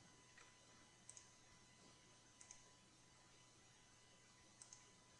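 Near silence with a few faint, sharp computer mouse clicks spread apart.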